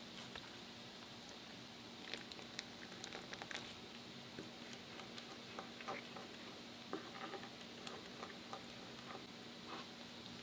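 A metal fork stirring powdered sugar and liquid into a lemon glaze in a small ceramic bowl: many small, quiet clicks and scrapes of the fork against the bowl, starting about two seconds in.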